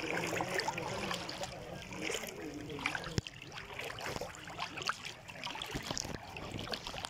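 Shallow floodwater sloshing and trickling, with a few short knocks, one a little over three seconds in.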